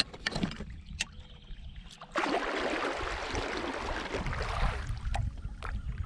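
Kayak on the water, heard from inside the hull. A few sharp knocks and clicks are followed, about two seconds in, by a loud rush of splashing water lasting two to three seconds.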